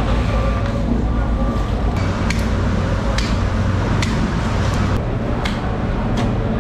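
Sharp knocks about once a second: a mallet striking the spine of a long knife to drive the blade through a tuna's tail and head, over a steady low hum.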